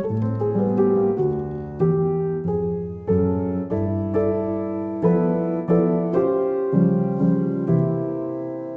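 Background piano music: a calm melody of notes played one after another, each fading before the next.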